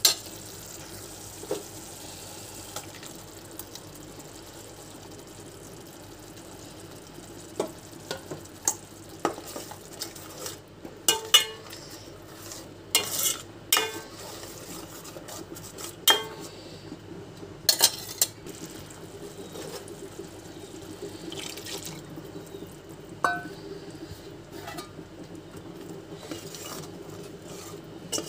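Steel spoon stirring a thick masala curry in a metal pot, scraping and clinking against the pot's sides and bottom now and then, most often in the middle stretch. A steady low hum runs beneath.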